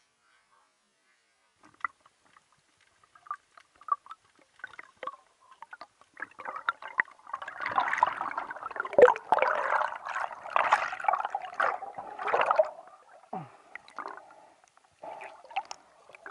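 Air bubbles gurgling underwater close to the camera, a dense burst lasting several seconds in the middle, after a few scattered clicks and taps.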